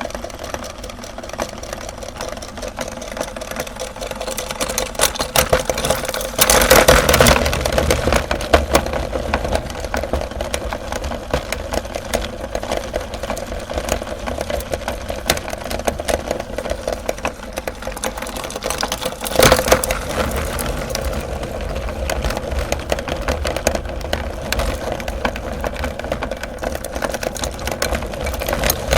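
Electric meat grinder running steadily while grinding chocolate umbrella candies, with a dense crackle of crunching; it gets louder for about a second around 7 s in and again briefly around 20 s in.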